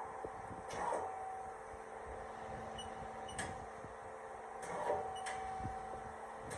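Haas SL40T CNC lathe running with a steady hum and whine, with a few sharp clicks and soft swells.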